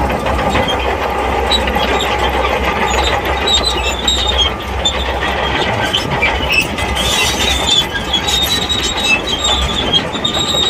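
SHANTUI crawler bulldozer working, its diesel engine running steadily while the steel tracks squeal and clatter.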